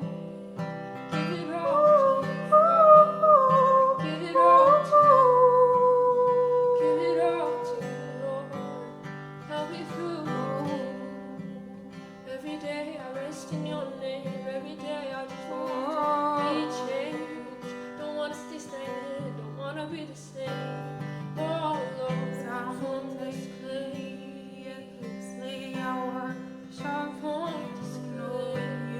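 Acoustic guitar played under a singing voice; the voice sings a wavering melody that ends on one long held note about seven seconds in, then sings more softly over the guitar.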